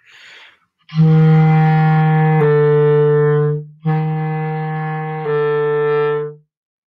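B-flat clarinet playing its lowest notes: a held low F slurring down a step to low E, the lowest note on the clarinet, then a short break and the same F-to-E pair again, each note a little over a second long. A quick breath comes before the first note.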